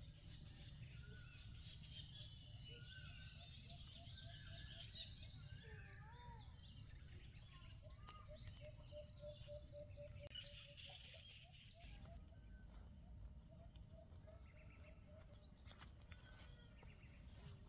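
A steady, fast-pulsing high trill of insects, with scattered short bird chirps over it; the insect chorus drops noticeably in level about twelve seconds in.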